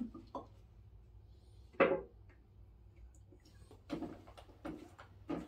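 Handling knocks from painting gear being set up: a paint tin and a roller going into a plastic paint tray. One sharp clunk about two seconds in, then a few softer knocks near the end.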